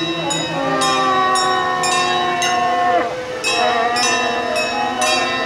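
Traditional Taiwanese temple-procession ensemble playing: a held, wavering melody line, from fiddle, pipe or voices, that slides down about three seconds in, over a bright metal percussion instrument struck in a steady beat.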